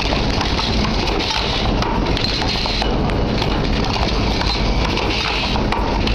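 Automatic plug and wall-socket assembly machine running: a steady, dense clatter of clicks and knocks from its moving parts, with a higher hiss that comes and goes every second or so.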